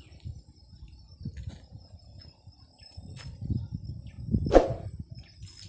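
A steady high-pitched insect drone over an uneven low rumble of handling noise from the carried phone, with one loud thump about four and a half seconds in.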